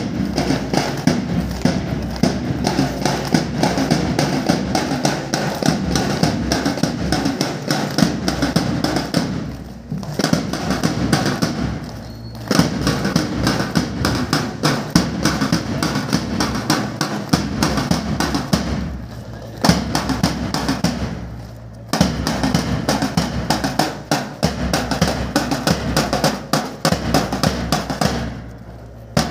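Marching drums, two snare drums and a bass drum, beating a fast, steady rhythm of rapid strokes, breaking off briefly several times.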